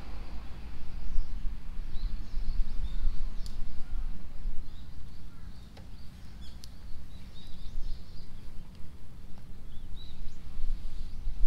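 A constant low rumble with small birds chirping briefly now and then.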